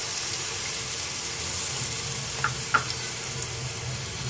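Chopped onion sizzling in hot oil in a non-stick pan, a steady hiss, with two brief clicks a little past halfway.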